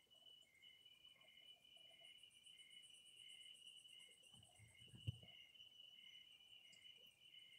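Faint night chorus of crickets and other insects: a steady high trill, short chirps repeating about three times every two seconds, and a faster, very high pulsing. A single sharp click about five seconds in.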